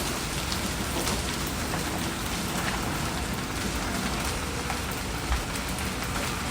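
Fried rice sizzling in a hot pan: a steady, even hiss with a few faint clicks.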